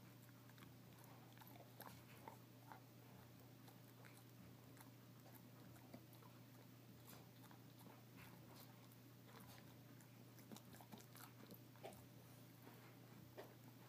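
Old English bulldog gnawing on a Busy Bone chew: faint, irregular clicks and crunches of teeth on the chew.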